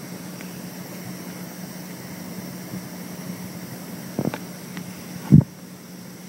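Boat engine running with a steady low hum over a noisy hiss. Two knocks come about a second apart near the end, the second the louder.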